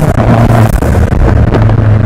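Fiat 500 Abarth's turbocharged four-cylinder heard at the tailpipe, its note dropping to a lower steady drone as the revs fall, with a few sharp exhaust pops. Wind buffeting and clipping distort the sound.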